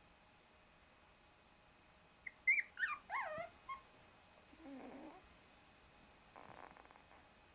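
Shiba Inu puppies about three weeks old squeaking: a quick run of high, falling squeaks about two seconds in, then a lower grunting whine, and a short soft scratchy rustle near the end.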